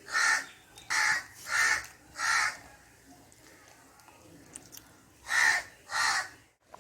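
A crow cawing: four harsh caws about two-thirds of a second apart, then two more after a pause of about three seconds.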